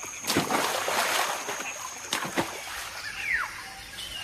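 A macaque leaping into a river: a loud splash about a third of a second in, water churning for about a second, then two more sharp splashes a little after two seconds. Near the end there is a short high call that falls in pitch.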